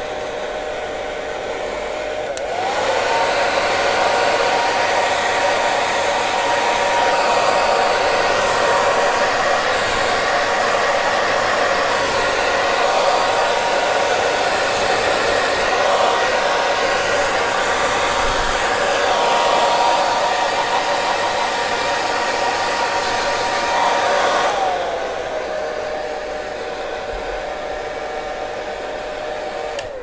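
Hair dryer running with a steady rush of air and a motor whine. About two seconds in it steps up to a higher speed, the whine rising in pitch and the blowing louder; near the end it drops back to the lower speed and the whine glides down again.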